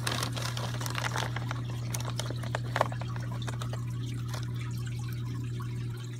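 Aquarium water trickling over a steady low hum, with scattered light clicks from plastic coral bags being handled. One sharper click comes a little before the middle.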